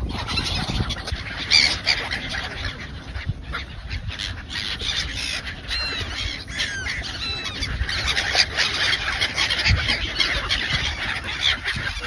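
A flock of gulls calling, many squawking calls overlapping without pause, with a few clear single call notes standing out about halfway through.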